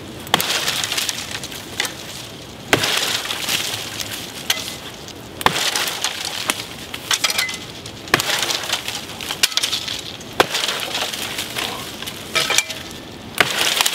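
A hand-forged battle axe, made from an old pick axe head, chopping into a dead fallen tree: repeated sharp chops a second or two apart, with dry wood splintering and crackling after the blows.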